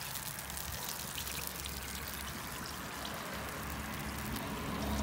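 Fat sizzling and crackling in the hot baking tray under a freshly roasted goose: a steady hiss dotted with fine crackles.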